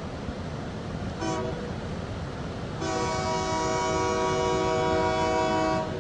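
Alco diesel locomotive's multi-chime air horn sounds a short blast about a second in, then a long blast from about three seconds in that cuts off near the end. This short-then-long pattern ends the standard grade-crossing warning. A steady low rumble runs underneath.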